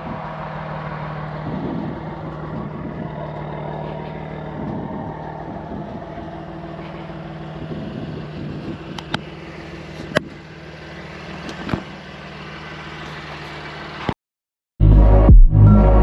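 BMW F80 M3's twin-turbo straight-six running steadily at low revs, with a few sharp clicks about nine to twelve seconds in. The engine cuts off abruptly about 14 seconds in, and after a brief gap loud electronic music starts.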